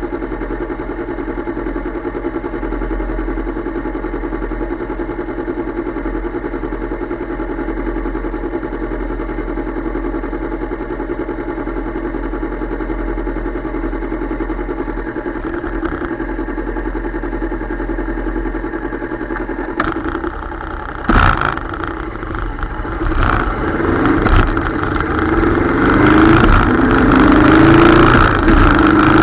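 Motorcycle engine idling steadily while stopped. About two-thirds of the way through there are a few sharp clicks, then the engine revs and accelerates away, its pitch rising several times as it goes up through the gears.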